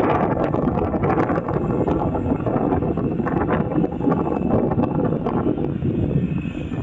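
Wind buffeting the microphone over a low rumble. About six seconds in, a thin, high engine whine comes in from the Airbus A330's jet engines.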